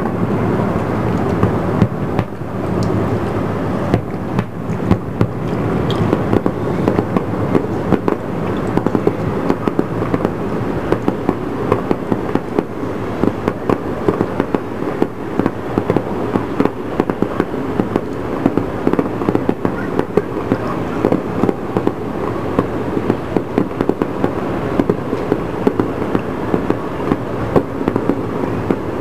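Aerial fireworks going off at a distance in a dense, continuous barrage of pops and bangs that run together, with most of the sound's weight low.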